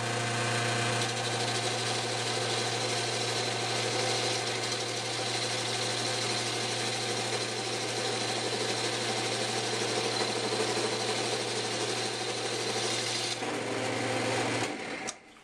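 Wood lathe running, its electric motor giving a steady hum while a hand-held turning tool cuts the spinning blank, a poor wood that flakes off in chunks. Near the end the cutting noise stops, and a moment later the motor hum stops.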